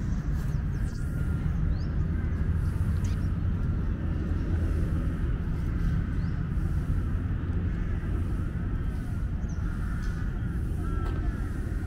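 Outdoor ambience: a steady low rumble, with faint bird calls scattered through it, a few more of them about nine to eleven seconds in.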